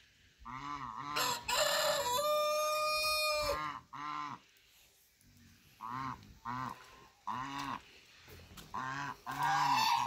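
Chinese geese honking in a string of short calls, with a rooster crowing once about a second in, ending on a long held note.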